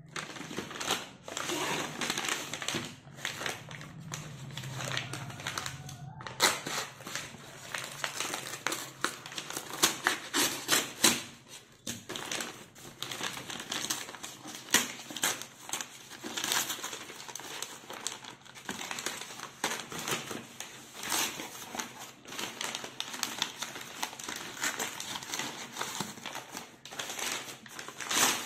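Paper courier bag crinkling and tearing as it is ripped open by hand, in irregular rustles and rips.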